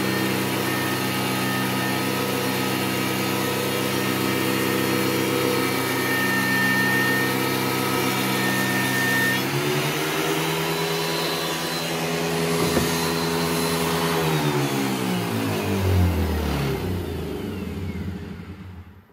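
Metabo DH330 thickness planer, fitted with a Sheartak 40-cutter carbide spiral cutterhead, running while planing an oak board; its tone shifts about halfway through. Later it is switched off, and its pitch falls as it winds down to a stop at the very end.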